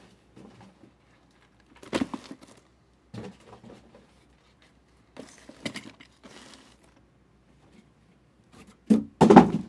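Scattered handling noises of trading-card packs and cards: short rustles and crinkles of foil pack wrappers with quiet gaps between them, a louder one about two seconds in and the loudest near the end.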